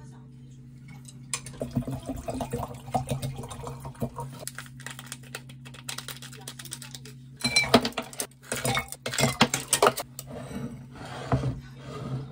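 Dishes and metal cutlery clattering and clinking in a kitchen, over a steady low hum. The loudest clatters come in the second half.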